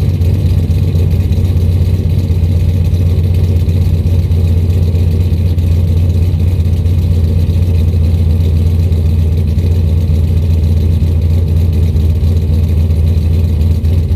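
Gen 4 5.3 L LS V8 with a BTR stage 2 turbo cam idling steadily after a cold start, through a single 3.5-inch exhaust with a straight-through 4-inch diesel muffler.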